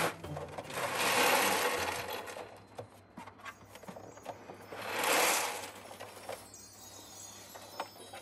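Pellet cat litter sliding and pouring inside the drum of a hand-turned semi-automatic rotating litter box as the drum is rotated to sift it, with scattered light clicks. The pellets make two rushing swells, one about a second in and one about five seconds in.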